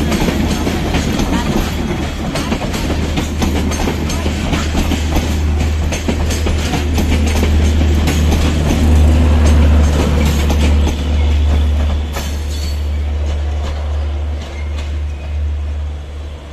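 Bangladesh Railway intercity passenger coaches rolling past close by, wheels clattering over the rail joints. The sound drops away after about twelve seconds as the last coach passes and moves off.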